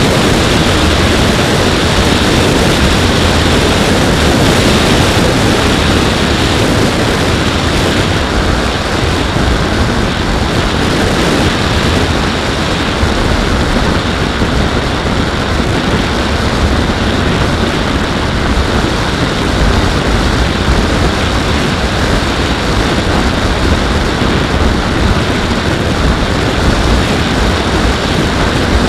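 Steady wind rush and buffeting on the onboard camera's microphone, mixed with the hum of the Skywalker X-8 flying wing's electric motor and pusher propeller in cruising flight.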